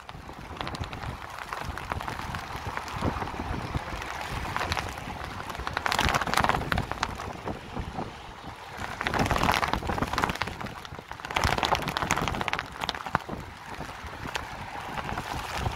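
Rain ticking on an umbrella's fabric right over the microphone, with storm wind rushing across it and swelling in several louder gusts.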